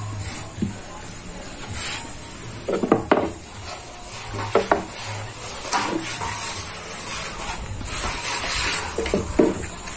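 Long thin wooden rolling pin rolling and knocking on a wooden board as yufka dough is rolled out and wrapped around it: scattered soft knocks and clicks over a steady hiss.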